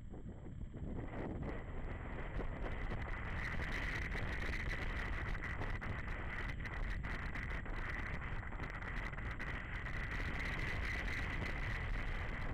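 Wind rushing over the microphone of a camera on a moving BMW G 650 GS Sertao motorcycle, with the bike's running and road noise underneath. It rises a little about two seconds in and then holds steady.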